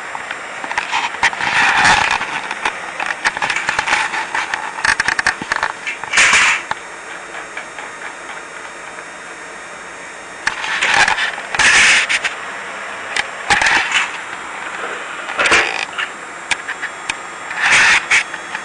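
Toy train rattling and clicking along its track in irregular bursts, with a steady hiss between them.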